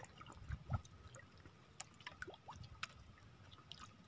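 Faint water dripping and trickling with scattered light ticks and small splashes, around a wet handline being pulled in by hand over the side of a small outrigger canoe.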